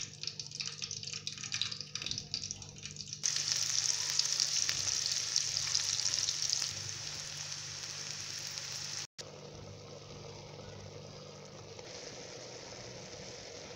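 Irregular clicks and knocks, then chopped onions sizzling loudly in hot oil in a frying pan, starting abruptly about three seconds in. After a short dropout, a quieter steady sizzle follows as spiced mutton pieces cook in a steel pot. A low steady hum runs underneath.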